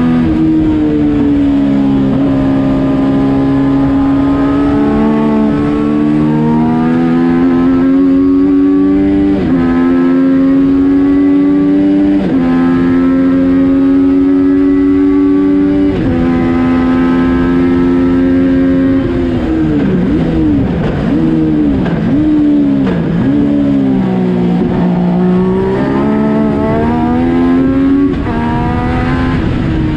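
A Yamaha FZ-09 inline-three engine in a race car, heard from inside the cockpit under hard acceleration, with quick upshifts in the first half. About two-thirds in it brakes and drops gears with a series of throttle blips, then pulls hard again in a low gear near the end.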